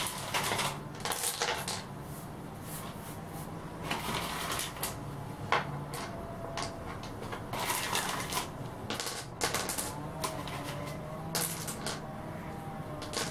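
Small river pebbles clacking against each other and on the tile floor as they are picked from a bowl and set down around the rocks: irregular clicks, the sharpest about five and a half seconds in.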